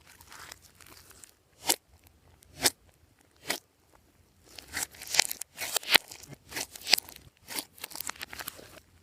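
Glossy slime being pressed and worked by hand: three sharp pops a little under a second apart, then, from about halfway through, a busy run of crackling clicks and squishes.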